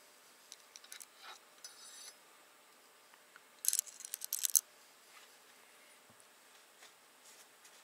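A metal pick scraping and clicking against the valve keepers and spring retainer of a 12-valve VR6 head as the keepers are worked into place. There are light clicks in the first couple of seconds, then a quick cluster of sharp metallic ticks about four seconds in.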